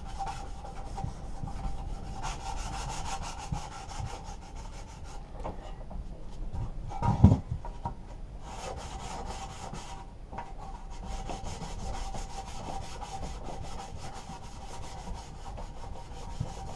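Sandpaper on a hand sanding block scraped back and forth over the painted metal starter shroud of a Briggs & Stratton mower engine, scuffing the old paint to give primer a key rather than stripping it. A single sharp knock about seven seconds in.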